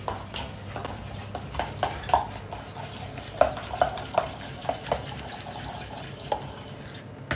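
A thick mascarpone cream being stirred smooth in a stainless steel bowl, the utensil scraping and clinking irregularly against the ringing metal. A steady low hum runs underneath.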